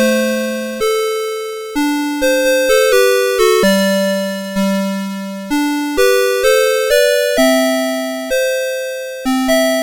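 A CITIZEN Melody Box 30 alarm clock's electronic alarm melody: bright, chime-like notes that each strike and fade, a tune over a lower line of accompanying notes.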